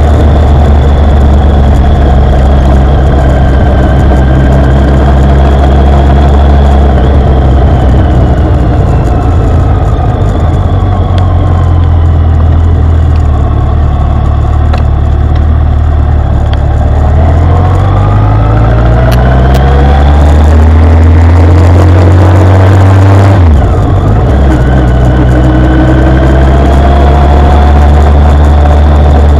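Motorcycle engine heard from a bike-mounted camera: the revs sink over the first half as the bike slows. They then climb steadily for several seconds under acceleration and fall sharply about 23 seconds in at a gear change, before running on steadily.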